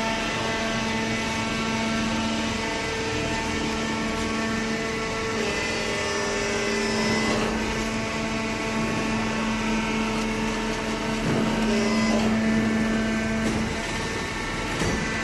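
Horizontal hydraulic paper baler running: a steady hum and whine from its motor and hydraulic pump, with its pitch shifting a few times and a few short clunks.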